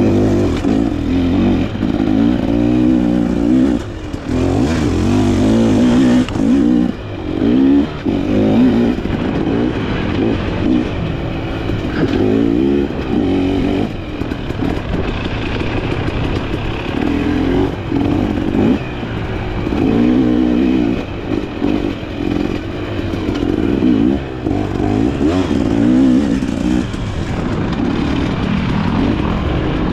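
Dirt bike engine being ridden hard, revving up and down again and again, its pitch rising and falling every second or two.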